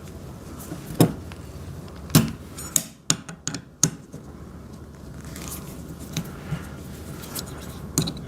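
Metal parts and hand tools clicking and clinking as fittings on a metal stand frame are worked loose, in a few sharp knocks a second or so apart with quieter handling sounds between.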